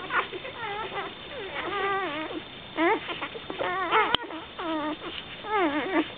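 Four-day-old golden retriever puppies squeaking and whining while they nurse: a string of short, wavering, high-pitched calls, some rising and falling, one after another.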